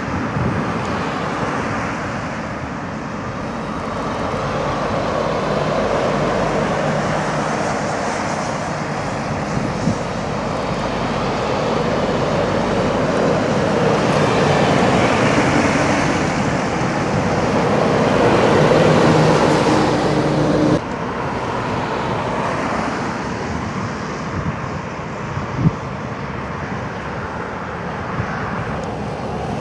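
Roundabout traffic of heavy lorries and cars: diesel engines and tyre noise, building to their loudest as a Scania concrete mixer lorry passes close about halfway through, then dropping suddenly to quieter traffic about two-thirds in.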